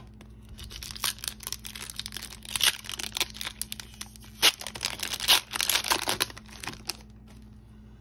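An Upper Deck MVP hockey card pack's wrapper being torn open and crinkled by hand. It is a quick run of crackling rips and crinkles, loudest around the middle, that stops about seven seconds in.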